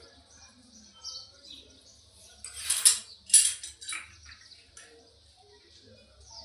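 A few short metallic scrapes and clinks from plumbing fittings and tools being handled, the loudest pair about three seconds in, over faint bird chirping.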